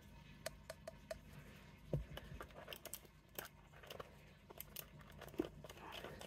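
Faint scattered clicks, light taps and rustling from gloved hands handling a small plastic glitter jar and scoop, with a soft knock about two seconds in.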